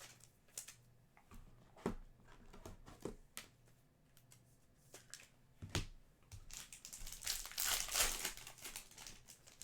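Trading cards being handled: scattered light clicks and taps as cards are slid and set down. About seven seconds in comes a burst of pack-wrapper crinkling that lasts roughly a second and a half.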